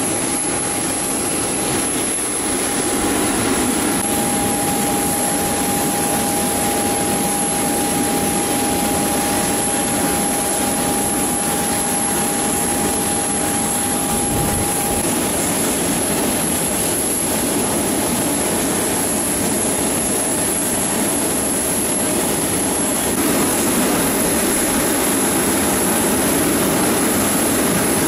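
Jet aircraft engine noise on an airport apron: a steady rushing sound with a constant high-pitched whine above it and, for the first half, a steady mid-pitched tone.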